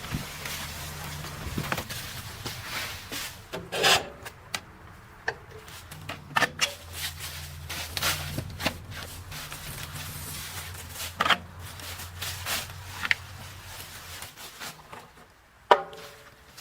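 A low steady machine hum with repeated wooden scraping, knocking and cracking over it and several louder crunches. The hum stops about a second before the final loud crack.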